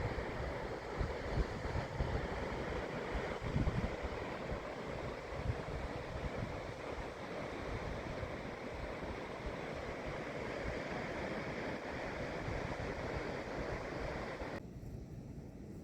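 Steady rush of water, with wind buffeting the microphone in low gusts. Near the end the sound cuts suddenly to a quieter low rumble.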